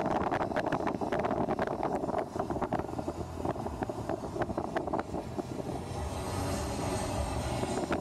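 Car on the move: steady road and wind noise with many small irregular clicks and knocks, a little quieter after about two seconds.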